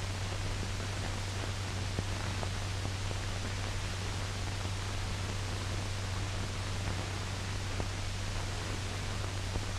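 Steady hiss and low hum of an old optical film soundtrack, with a few faint crackles.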